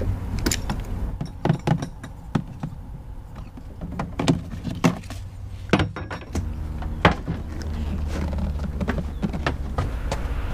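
Handling knocks and thumps as portable inverter generators in plastic housings are lifted off and set down on a fiberglass boat's generator tray, with a few light clinks of a strap buckle. A low steady hum comes in about six seconds in.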